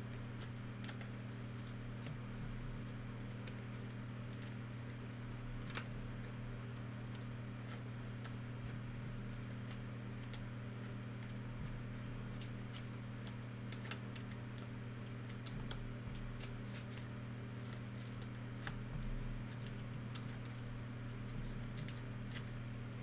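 Trading cards and pack wrappers being handled, making scattered light clicks and ticks over a steady low hum.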